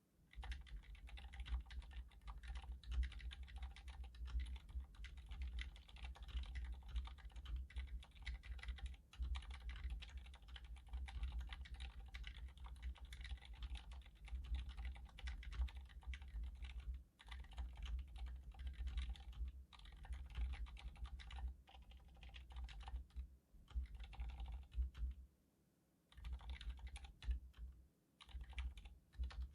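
Continuous fast typing on an iQUNIX F96 mechanical keyboard with silent red (linear, dampened) switches: a dense run of soft key clacks, with a couple of short pauses near the end.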